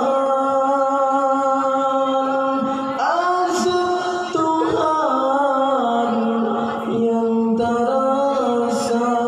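A man singing an Acehnese qasidah (religious praise song) solo, holding long drawn-out notes that slide and turn in pitch between phrases.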